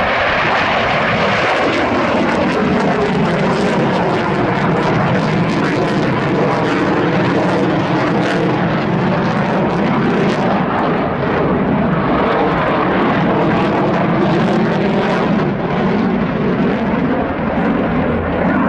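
Dassault Mirage 2000D fighter jets' SNECMA M53 engines running loud and steady in a flying display, with the afterburner lit. Tones in the jet noise slide down in pitch about a second in and bend again midway as the aircraft pass and turn.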